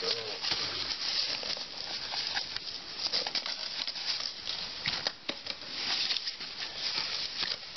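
Lightweight folding camp chair being handled: the nylon seat fabric rustles and the pole frame gives irregular light clicks and knocks.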